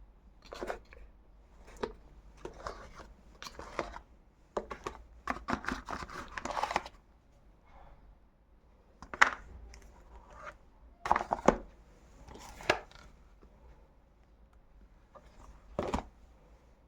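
Handling noises from a device and its packaging: irregular taps and clicks with bursts of rustling and crinkling. The busiest stretch is about five to seven seconds in, and there are sharp knocks near nine, twelve and sixteen seconds.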